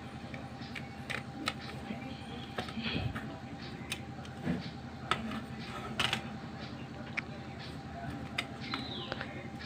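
Small plastic clicks and taps from a TV remote's casing, circuit board and rubber keypad being handled, over a faint steady hum.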